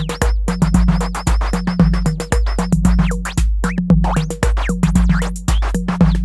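Behringer RD-8 analog drum machine (an 808 clone) playing an electro beat: long, deep booming bass drum on a steady pulse under fast ticking hi-hats, with quick rising and falling pitch sweeps over the top.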